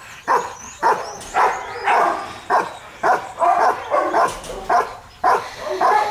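A German Shepherd barking steadily and rhythmically, about two loud barks a second, the bark-and-hold ('late') of protection training at a hiding blind.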